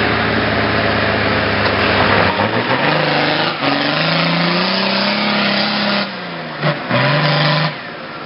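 Off-road 4x4 buggy engine revving hard under load as it climbs a steep, muddy bank with its wheels spinning. The revs rise and fall with the throttle, dip sharply about seven seconds in, climb again briefly, then drop away near the end.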